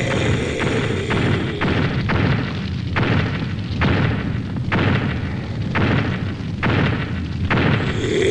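Heavy booming footsteps of a giant robot, a cartoon sound effect: evenly paced thuds about once a second over a low rumble.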